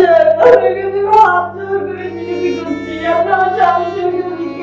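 Background music: a voice sings a slow melody in long held, gliding notes over a steady low drone.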